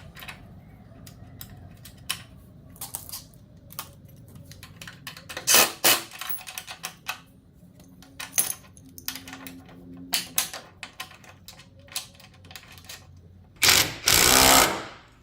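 Clicks and metallic clanks of tools and caster hardware being handled, then near the end a loud burst of about a second and a half from a cordless power tool driving in the caster's mounting fasteners.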